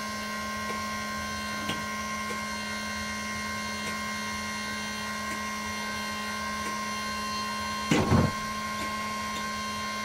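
Small electric motor of an automatic chicken coop door opener running with a steady hum as it slowly winds up the line to raise the door. One brief louder noise comes about eight seconds in.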